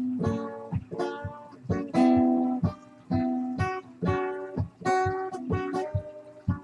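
Guitar being played: plucked notes and chords, a few a second, each ringing out and fading before the next.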